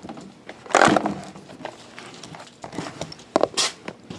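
Shrink-wrapped cardboard boxes being handled and shifted in a stack: a crinkling scrape of plastic-wrapped cardboard about a second in, then a couple of short knocks and rustles near the end.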